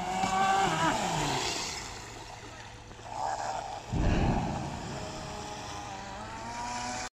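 Electric RC speedboat running on 6S LiPo batteries at speed, its motor whining and changing pitch as it accelerates and turns. A loud, brief low rumble comes about four seconds in.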